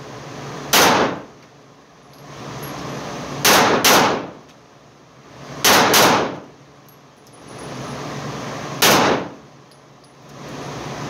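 A 9mm Arex Delta Gen 2 pistol fired six times, each shot ringing off the walls of an indoor range. There is a single shot about a second in, then two quick pairs, then a last single shot about nine seconds in.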